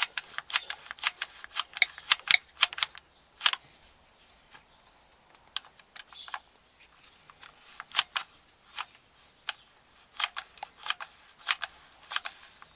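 Hot glue gun trigger clicking as it is squeezed repeatedly to lay glue into the bottom of a tube: a quick run of sharp clicks for the first few seconds, a short pause, then scattered clicks.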